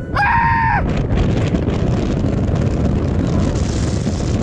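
Wind rushing over a camera microphone, a steady loud rush. A held high-pitched sound stops just under a second in.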